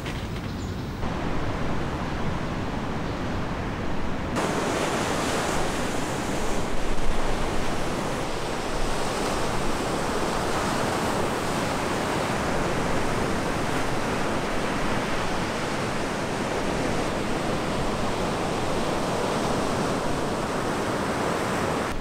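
Ocean surf breaking on a sandy beach: a steady wash of waves with wind, growing suddenly fuller about four seconds in.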